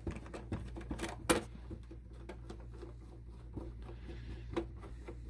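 Small clicks and taps of a screwdriver turning out the small screws of a Lionel O gauge boxcar's underbody plate. The parts are handled with one sharper click a little over a second in.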